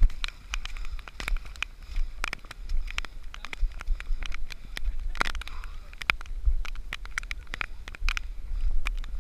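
Footfalls in wet mud, heard from a camera worn by the runner, with a low buffeting rumble and many irregular sharp crackling clicks.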